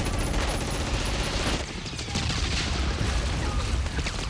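Rapid, sustained gunfire from blank-firing rifles and machine guns, many shots overlapping, with a brief lull about two seconds in.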